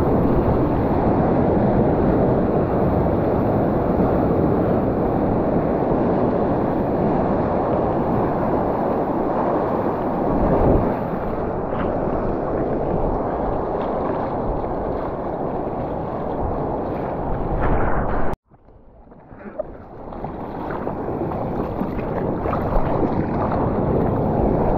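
Steady rushing wind and surf noise on a camera microphone in the ocean. It cuts out abruptly about three-quarters of the way through, then gradually builds back up.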